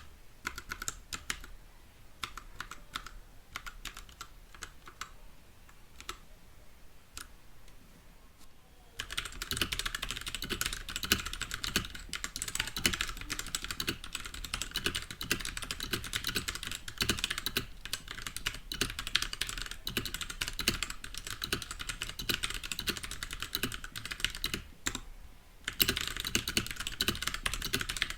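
Typing on a Royal Kludge RK68 65% mechanical keyboard with TTC brown switches. Scattered, quieter keystrokes for the first several seconds give way to fast, continuous, louder typing, with a brief pause near the end.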